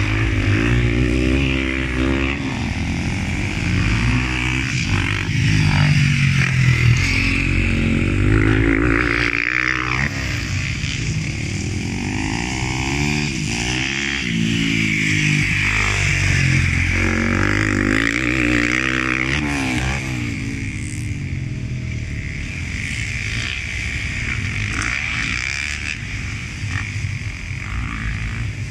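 Motocross dirt bike engines revving hard and shifting as they ride the track, the engine note climbing and dropping again and again. The bikes are a little quieter and farther off in the last third.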